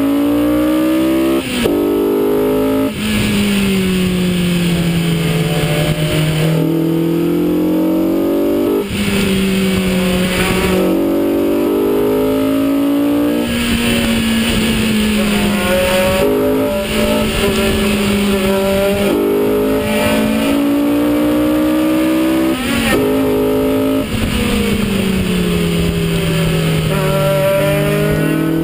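Loud modified sports-car engine with an aftermarket exhaust pulling hard and shifting gears again and again: the pitch climbs, breaks off and drops at each shift, with road and wind noise underneath.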